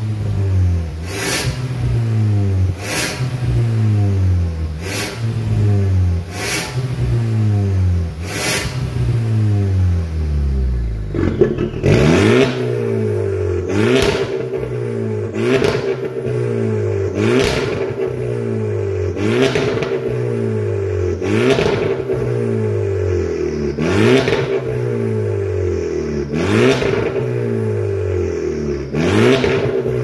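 Volkswagen Golf's valved quad-tailpipe aftermarket exhaust as the stationary engine is revved over and over, a blip about every two seconds with the pitch falling back after each. For the first eleven seconds or so the exhaust valve is closed (stock-like 'normal sound'); then the valve opens to 'racing sound' and a strong steady drone joins the revs.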